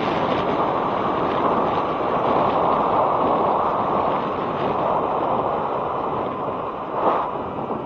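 Wind rushing over a helmet-mounted action camera's microphone while riding an electric scooter: a steady noise with a brief louder gust about seven seconds in.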